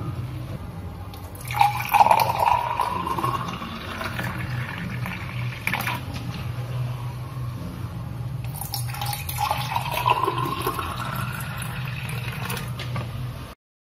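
Pathaneer (palm sap) poured in a thin stream into drinking glasses, one glass and then another, each pour rising in pitch as the glass fills. A steady low hum runs underneath.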